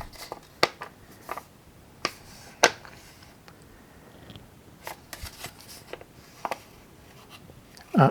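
A folded paper instruction leaflet being handled and unfolded: scattered crisp rustles and snaps of paper at irregular intervals, the sharpest about two and a half seconds in.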